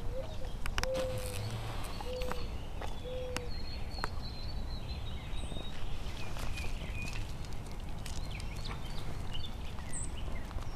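Outdoor ambience: a steady low rumble of wind and handling noise, with scattered sharp clicks. A bird gives four short, low cooing notes in the first few seconds, and a thin, high whistle follows around the middle.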